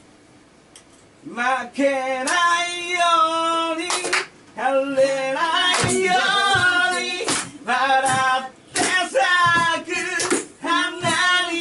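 A voice singing without instrumental backing, with a wavering vibrato on held notes, starting about a second in after a moment of low room sound. Several sharp slaps or claps cut through the singing.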